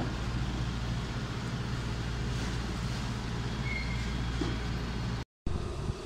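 Steady low mechanical rumble and hum, like nearby traffic or a running machine, broken by a brief dropout about five seconds in.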